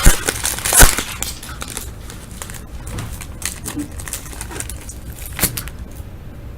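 Foil wrapper of a hockey card pack crinkling and tearing as it is opened and handled, with two sharp snaps in the first second and a single click about five and a half seconds in.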